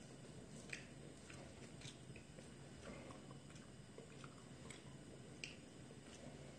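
Near silence with faint, irregular small clicks and squishes: a knife slicing through a raw wild boar haunch on a wooden cutting board.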